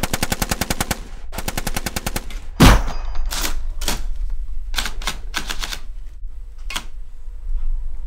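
Two bursts of rapid automatic gunfire, about fifteen shots a second, then a loud bang and a string of single shots spread over the next few seconds.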